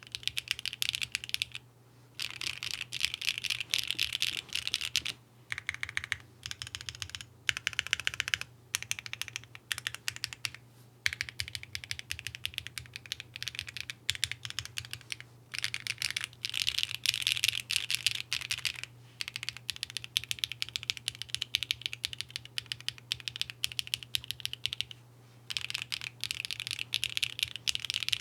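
Mode65 mechanical keyboard with HMX Xinhai switches on a carbon fiber plate, without foam, being typed on in fast runs of clacking keystrokes. The runs are broken by brief pauses.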